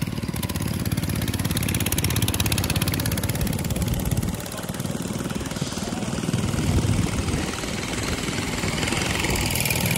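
Small engine of a drag mini bike running close by, a rapid, even stream of exhaust pulses that dips briefly about four seconds in.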